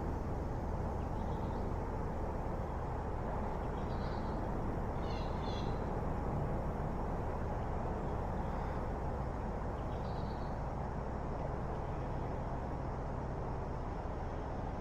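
Steady rushing of river water around a wading angler, with a few short, high bird chirps a few times.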